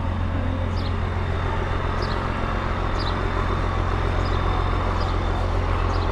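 Steady low vehicle rumble, like a car running or road traffic, with a faint high chirp repeating about once a second.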